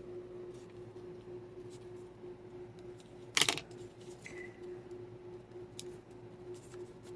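Small craft pieces being handled and set in place on a paper tag: faint scattered clicks and one brief, louder rustle or tap about three and a half seconds in, over a faint steady hum.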